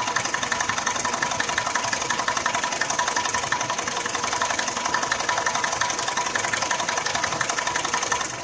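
Nissan X-Trail engine idling hot with a rapid, steady knock from the timing-chain drive area. The knock appears only once the engine is warm, and the mechanic suspects the timing chain.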